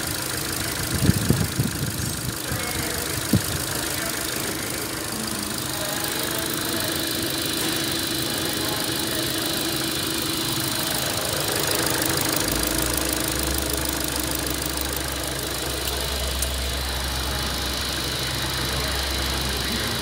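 Holden Cruze 1.8-litre Ecotec four-cylinder petrol engine idling steadily. A few sharp knocks come about a second in and again near three seconds, and a deeper low rumble joins about two-thirds of the way through.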